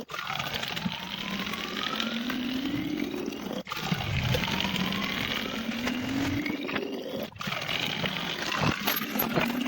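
A sound effect with a slowly rising whine over a hissing noise, cut off abruptly and started again about every three and a half seconds.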